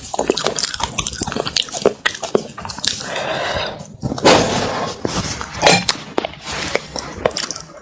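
Close-miked eating: wet chewing and mouth smacks with crisp clicks, and a longer wet, noisy stretch about halfway through.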